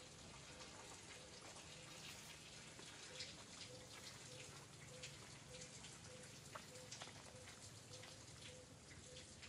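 Near silence: faint background hiss with scattered light ticks and a faint short tone pulsing about twice a second.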